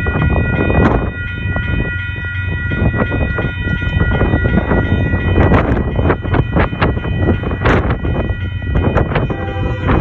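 Multi-chime air horn of a Union Pacific GE ES44AC diesel locomotive blowing one long chord over the heavy rumble of the passing train, with sharp clicks from wheels on the rail. Near the end a lower chord sounds as well.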